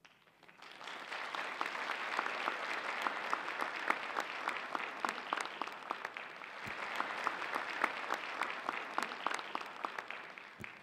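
Audience applauding: a dense, steady patter of many hands clapping that swells up in the first second and starts to thin out near the end.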